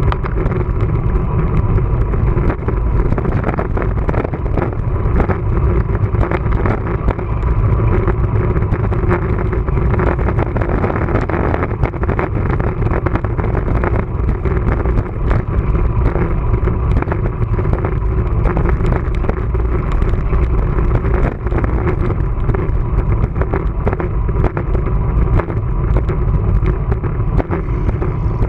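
Steady rumbling noise of a moving bicycle ride: wind on the microphone and road noise, with frequent small clicks and rattles.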